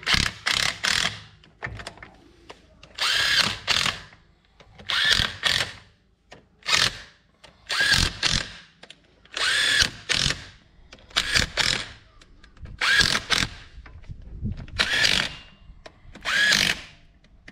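A handheld power tool, such as a drill or driver, run in short bursts of about a second each, about ten times in a row with brief pauses between. The motor whine is much the same in each burst.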